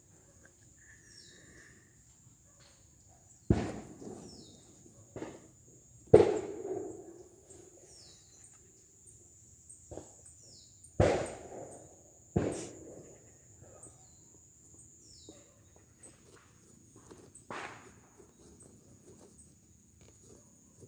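A few hollow knocks and bumps on a cardboard box as kittens paw at it, the loudest about six and eleven seconds in. Faint short falling bird chirps and a faint steady high tone sound between them.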